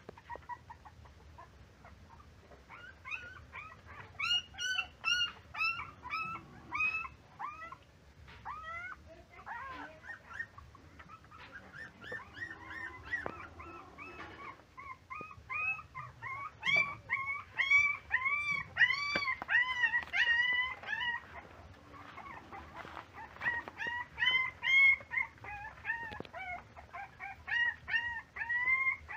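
Puppies whimpering and whining: many short, high-pitched cries, each rising and falling, coming in bursts from a few seconds in and loudest in the second half.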